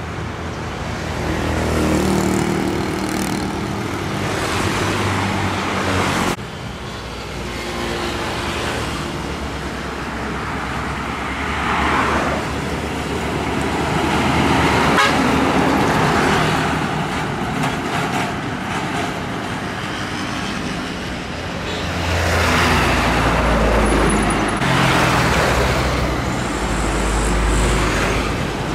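Heavy trucks and other road traffic passing close by, with engine and tyre noise. A strong low engine rumble comes in near the end as trucks pass close.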